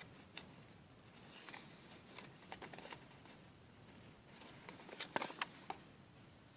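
Faint handling of paper and a small plastic toy: soft rustles and light clicks, with a quick run of clicks about five seconds in.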